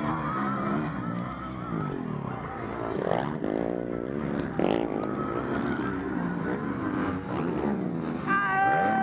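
Motocross bike engines revving hard as riders race by and take a jump, the pitch climbing and dropping with each throttle blip and gear change. Near the end one engine is held at a high, steady pitch.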